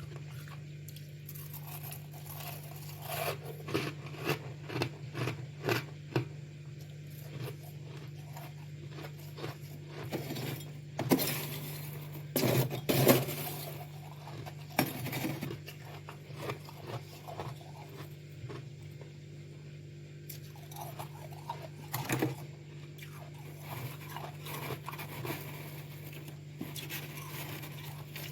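Freezer frost scraped up, bitten and crunched in close-up, in irregular clusters of crunches that are loudest about eleven to thirteen seconds in, over a steady low hum.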